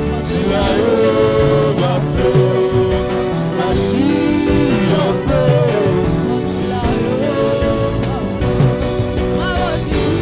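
Gospel worship music: a band holds sustained chords while a singer's voice slides and bends in wordless runs over them.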